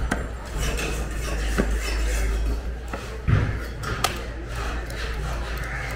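Heavy knife cutting through a cobia fillet on a wooden chopping block: a few scattered knocks and thuds, the loudest about three seconds in, followed by a sharper knock.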